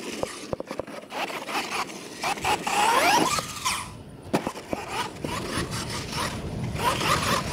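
Electric radio-controlled monster trucks running on a dirt track, their motors whining and rising in pitch as they accelerate, with tyres scraping the dirt. A few sharp knocks come from trucks landing or hitting ramps, one about four seconds in.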